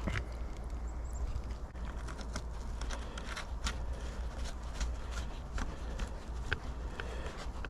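Irregular light clicks and taps of hand tools on bolts and washers as a light bar is unbolted from its brackets, over a steady low hum.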